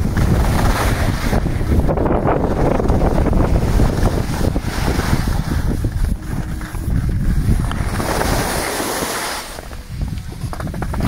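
Wind buffeting the microphone of a skier's body-worn camera during a downhill run, with the hiss of skis sliding over snow. The hiss swells about two seconds in and again around eight seconds.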